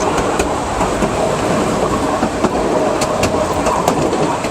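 A moving passenger train heard from aboard: a steady rumble with a few sharp clicks scattered through it, typical of wheels running over the rails.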